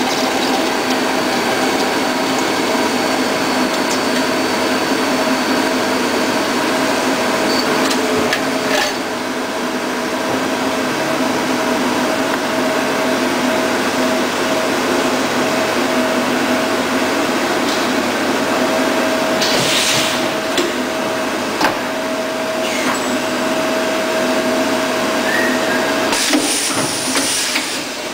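Mazak Integrex 200SY CNC turn-mill centre running: a steady mechanical whirr with a constant hum from the spindle and drives. The noise drops slightly about nine seconds in, and a few sharp clicks and short bursts of hiss come in the second half and near the end.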